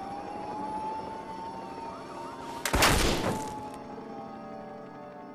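Emergency-vehicle sirens wailing, one rising in pitch and then holding steady while others sweep up and down beneath it. About two and a half seconds in, a single loud gunshot cracks out and dies away over about a second, the loudest sound here.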